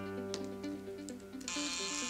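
Cordless drill running as it drives a small screw into the metal trap-door corner trim. It starts with a steady hum and picks up into a louder, higher whir about one and a half seconds in, over background music.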